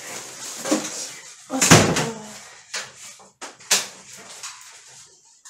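Plastic shopping bag rustling as groceries are unpacked. About a second and a half in, a heavy item is set down with a loud thud, followed by a few sharp clicks and knocks.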